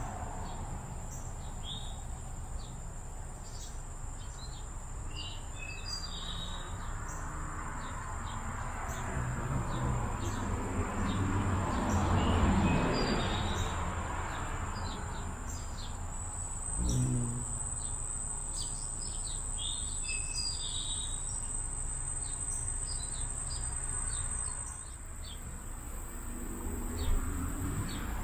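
Small birds chirping in short, scattered notes over a steady high-pitched insect drone. A broad rush of noise swells and fades about halfway through.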